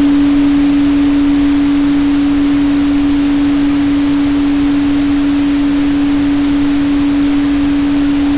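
A steady, single 285 Hz tone held unbroken over an even pink-noise hiss.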